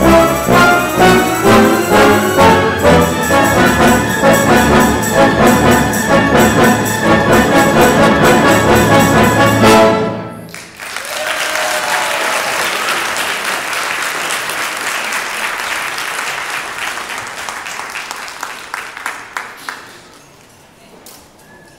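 Live orchestra with prominent brass playing a tune with a steady beat, which ends on a final chord about ten seconds in. Audience applause follows and fades away near the end.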